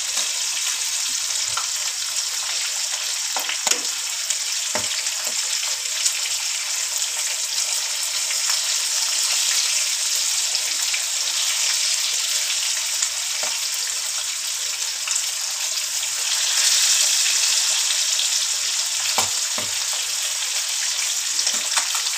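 Fish pieces shallow-frying in hot oil in a non-stick pan: a steady sizzle that swells a little about three-quarters of the way through, with a few light clicks of tongs against the pan as the pieces are turned.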